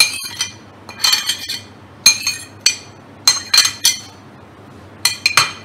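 Metal spoon clinking and scraping against glass bowls in short bursts of sharp knocks, about one burst a second, as chopped vegetables are knocked off into mashed potato.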